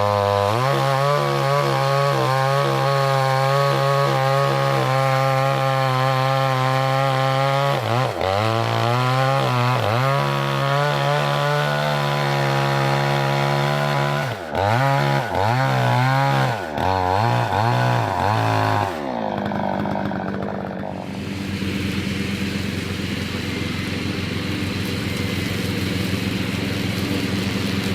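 Chainsaw running at high revs and cutting wood, its pitch dipping briefly and recovering several times as the chain bites. About two-thirds of the way through the engine note drops away, and a quieter, lower steady running follows.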